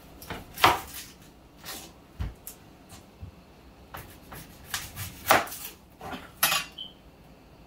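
Kitchen knife chopping a red onion on a wooden cutting board: irregular sharp knocks of the blade striking the board.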